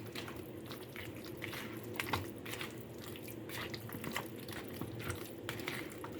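Raw chicken pieces being mixed with a thick yogurt and spice marinade: irregular wet squelching and smacking.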